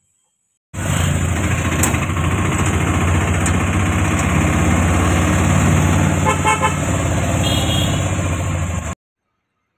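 Loud ride noise inside a moving passenger vehicle: engine rumble with road and traffic noise, and a horn beeping several times about six and a half seconds in. The noise starts abruptly just under a second in and cuts off suddenly about a second before the end.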